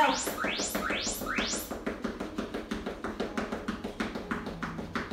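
Quick, even footfalls of someone doing fast feet, running in place, about four to five steps a second. Workout music plays underneath, with rising synth sweeps in the first couple of seconds.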